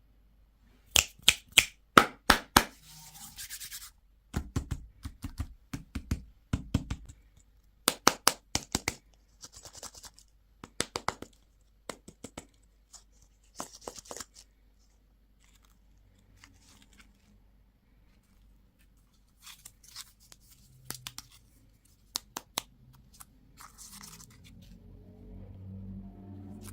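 Hands handling and opening plastic candy and toy packaging: quick clusters of sharp clicks and taps, short bursts of crinkling, and a few dull knocks a little after the start.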